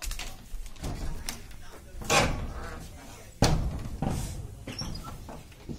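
A few dull thumps and knocks, the loudest about two seconds in and again about three and a half seconds in, each dying away quickly.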